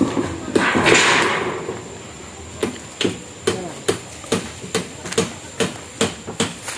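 A corrugated galvanized iron roofing sheet rattles briefly as it is lifted, about a second in; then a hammer strikes steadily, about two blows a second, nailing down the roof.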